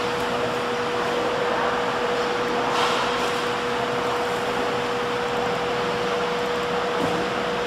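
Steady fan-like machine noise, an even whirring hiss with a constant hum tone, with a brief slight swell about three seconds in.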